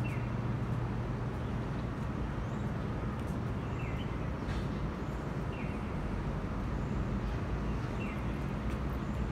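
Steady outdoor city background: a continuous low hum and rumble like distant traffic or machinery. A few short, faint falling chirps come every second or two over it.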